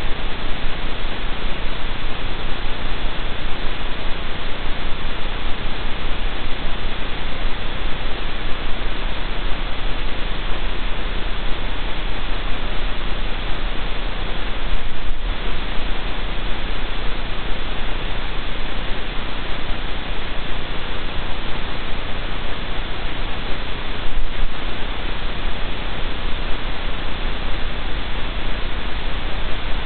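Steady, even hiss of static with a low hum beneath it: the noise floor of the den camera's audio feed.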